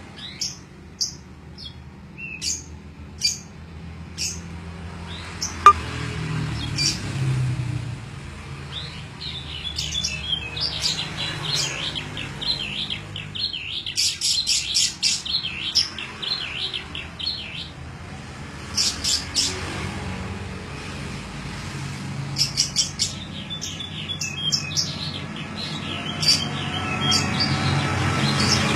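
Domestic canary singing a varied song of sharp chirps, whistles and rapid trills that mimics the song of a jalak (starling), over a steady low rumble. A single sharp click sounds about six seconds in.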